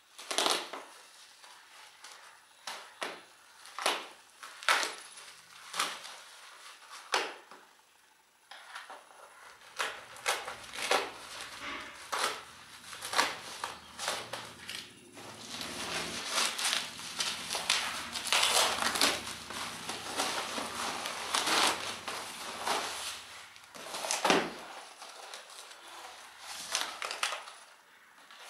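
Plastic wrapping and packing tape being pulled off a parcel: first a run of short sharp rips, then a long stretch of dense crinkling and rustling as the clear plastic is torn away.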